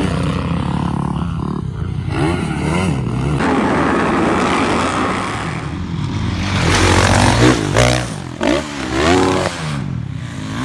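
Motocross dirt bike engine revving hard and easing off as the bike is ridden over the track. In the second half there are several quick rises and falls in pitch.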